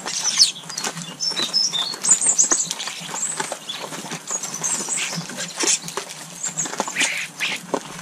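A feeding flock of garden birds, starlings among them: busy high chirps and chatter, wing flutters, and many sharp pecking and scrabbling clicks throughout.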